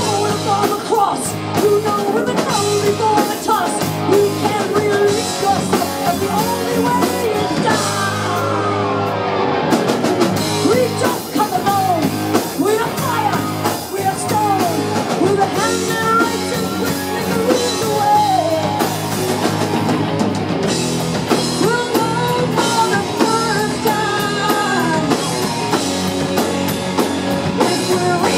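Live rock band playing: a woman's lead vocal sung through a microphone over distorted electric guitar, bass guitar and drum kit, loud and steady throughout.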